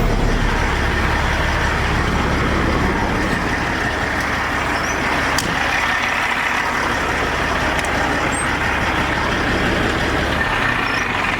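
A Peterbilt 379's Caterpillar diesel engine idling steadily, heard close at the engine bay, running again after a no-start.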